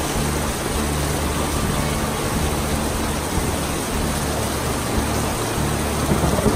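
Heavy rain falling, a steady hiss, with a low rumble underneath.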